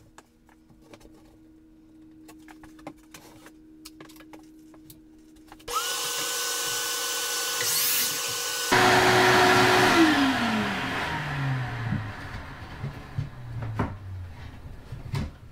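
Ridgid 12-inch sliding compound miter saw starting up with a high motor whine, about three seconds later biting through a wooden siding board (the loudest part), then spinning down with a falling pitch once the trigger is released.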